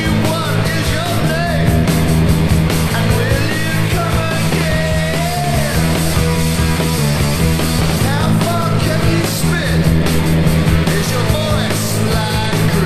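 Punk rock song playing loudly: a full rock band, with a melody line bending in pitch above a steady beat.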